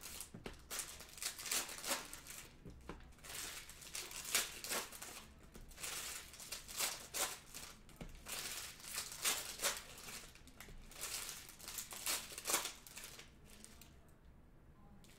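Foil wrappers of 2020 Panini Select NFL football card packs crinkling and tearing as the packs are ripped open by hand. A run of quick rustles that eases off near the end.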